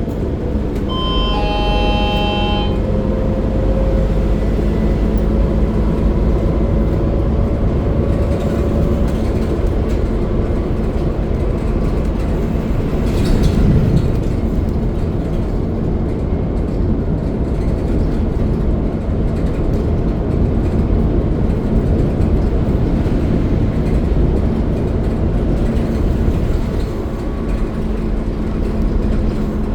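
Steady rumble of a moving vehicle heard from inside as a passenger rides by the window, swelling briefly about halfway through.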